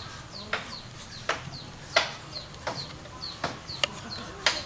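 Chickens giving repeated short, high, falling chirps, with sharp clicks about every 0.7 s from a small knife cutting a tomato over a wooden mortar; the knife clicks are the loudest sounds.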